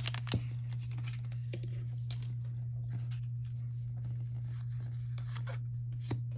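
Pokémon trading cards being handled and slid over one another, with scattered light clicks and scrapes, over a steady low hum.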